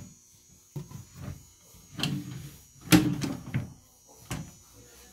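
A drawer of an assembled chest of drawers is slid out and handled, giving a series of knocks and scraping clatter against the cabinet. The loudest bump comes about three seconds in.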